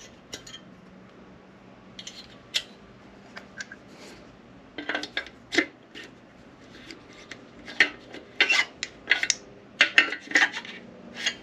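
Piston ring end being filed on a hand-crank ring filer: a few light metal clicks, then from about halfway runs of short rasping strokes. The ring's end gap is too tight and is being opened up to the turbo spec.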